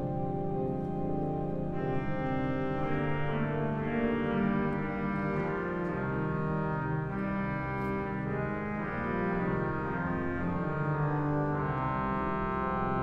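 Church organ playing a hymn in sustained, held chords that change every second or so, growing fuller about two seconds in and again near the end.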